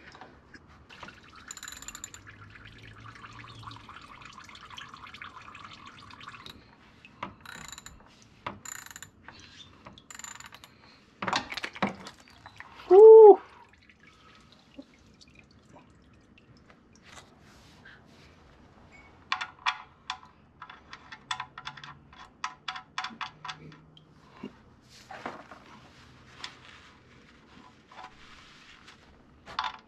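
Engine oil dripping into a drain pan, with scattered clinks of tools. A ratchet wrench clicks in quick runs, about five clicks a second, a little past the middle, as the oil filter is worked loose with a filter wrench. A short, loud tone that rises and falls about 13 seconds in is the loudest sound.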